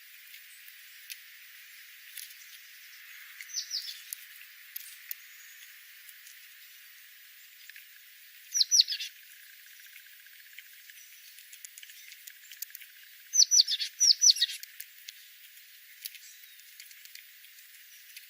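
Small songbirds chirping: clusters of short, high notes that sweep downward, a faint group a few seconds in, a louder group of two or three about halfway, and a longer run of several near the end, with faint ticks between.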